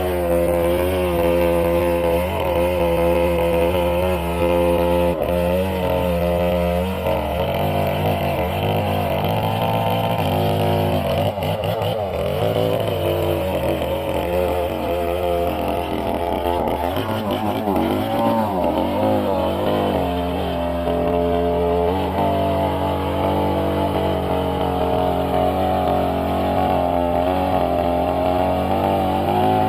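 Sawmill machinery running: a steady, loud engine-like drone whose pitch wavers about a third of the way in and shifts again about two-thirds of the way in.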